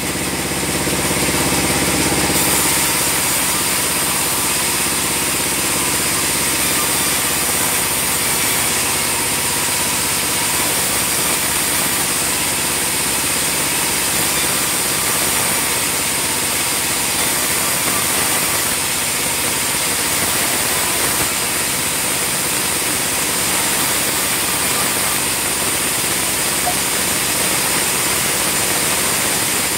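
A sawmill bandsaw running steadily, a machine drone over a broad hiss, its low end dropping away about two seconds in.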